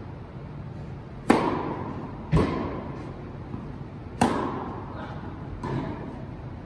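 Tennis rally: racket strikes on the ball and ball bounces on a hard court, one every second or so, each a sharp pop that rings briefly in the hall. The loudest strikes come about a second in and about four seconds in, from the near player's forehand.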